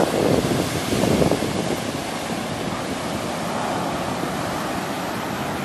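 Ocean surf breaking and washing up a sandy beach, loudest in the first second and a half, then a steadier wash. Wind buffets the phone's microphone.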